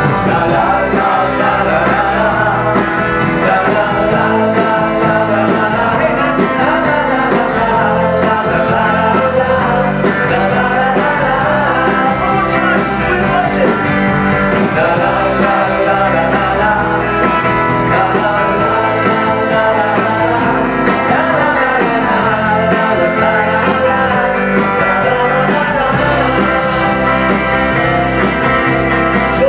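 Live pop-rock band playing through a PA: electric guitars and drums with a lead vocal.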